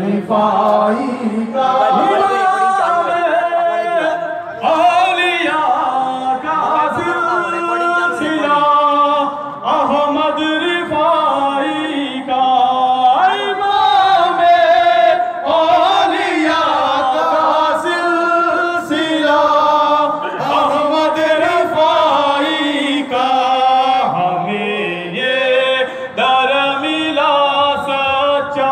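An Urdu devotional song (manqabat) praising Sayyid Ahmad ar-Rifa'i, sung by voices without instruments in a chant-like melody with long held, wavering notes.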